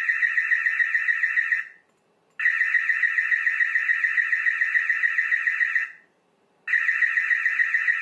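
Dahua TiOC security camera's built-in active-deterrence siren sounding its motion-detection alarm, quite loud: a high, rapidly warbling tone. It breaks off twice for under a second and starts again.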